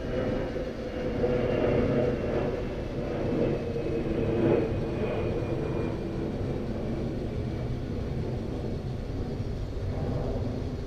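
Steady low rumble of street traffic and car engines, louder between about one and five seconds in.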